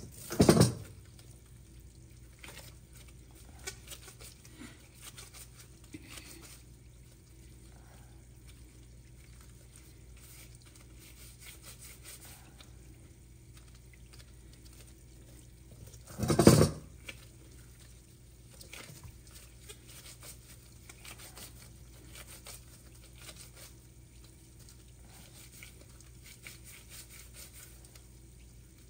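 Gloved hands quietly handling and shaping soft dough in a metal mixing bowl, with faint small rustles and taps over a low steady hum. Two sharp knocks stand out, one about half a second in and another about sixteen seconds in.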